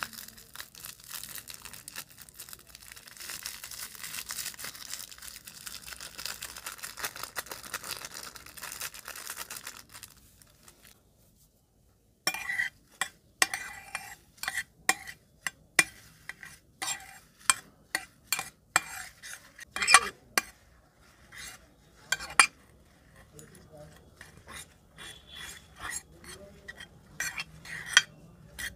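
For about ten seconds a plastic piping bag crackles steadily as it is squeezed out over white crunchy beads. After a short gap, a metal spoon stirs the beads in a glass baking dish, with many separate sharp clicks and scrapes against the glass.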